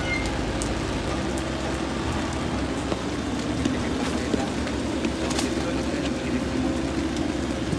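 Steady low mechanical hum with rain falling on the wet apron, and a few light taps of footsteps climbing metal aircraft boarding stairs.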